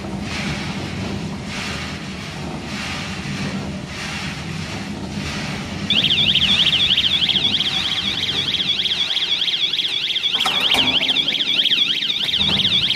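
Stainless-steel drum roasting machine running with a steady hum and a soft swish about once a second. About six seconds in, a loud, fast-warbling electronic alarm starts and keeps sounding over it.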